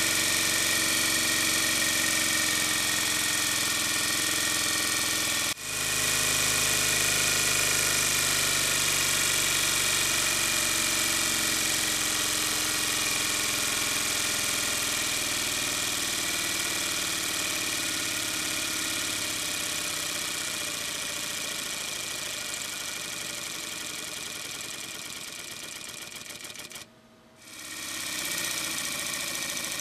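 Gasparin G63V12 twelve-cylinder 90° V CO2 model aircraft engine running steadily with its propeller spinning, a dense, even mechanical buzz. It dips briefly about five and a half seconds in, grows gradually quieter over the second half, and breaks off briefly a couple of seconds before the end before running again.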